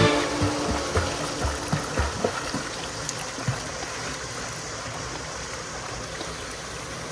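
Water of a small waterfall rushing steadily, with a few soft low knocks in the first couple of seconds.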